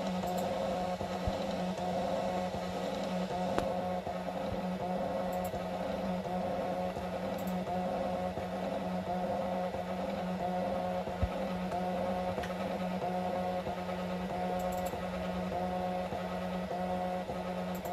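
Desktop 1 W diode laser engraver at work on a wooden keyring: its stepper motors give short whining tones that start and stop over and over as the head moves in short strokes, over a steady low hum.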